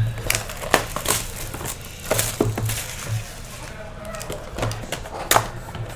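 Crackling, crinkling and sharp clicks of a trading card hobby box and its plastic wrapping being handled and opened, with two louder clicks, about a second in and near the end.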